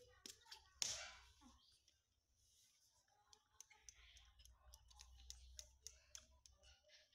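Faint small clicks and smacks from two baby macaques sucking milk from plastic feeding bottles, with one louder sound about a second in.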